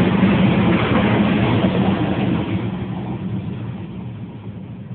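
Car moving at road speed, heard from inside the cabin: steady engine hum and tyre and wind noise, dying down over the last couple of seconds.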